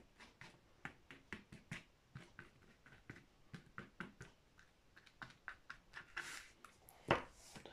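Paintbrush dabbing and tapping paint onto a canvas in quick, irregular strokes, with a short scrubbing brush stroke about six seconds in and a louder knock near the end.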